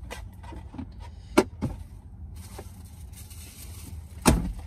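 Low steady rumble of a car with its engine running, heard from inside, with two sharp clicks, one about a second and a half in and a louder one near the end, and a hiss that comes in about halfway.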